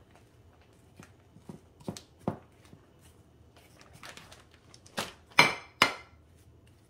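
Metal spoon knocking and scraping against a glass baking dish while spreading sliced apples: a few soft taps, then three sharp clinks about five seconds in, one ringing briefly.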